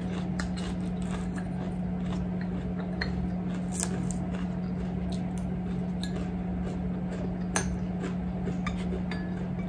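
Metal fork clinking and tapping on a ceramic plate while picking up salad and broccoli, in scattered light clicks, the sharpest near the middle and about three-quarters through. A steady low hum runs underneath.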